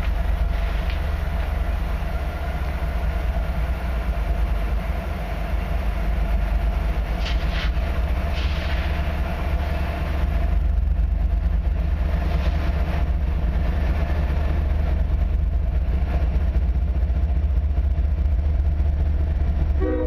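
Diesel locomotives of an approaching freight train, a steady low rumble that gets somewhat louder about halfway through.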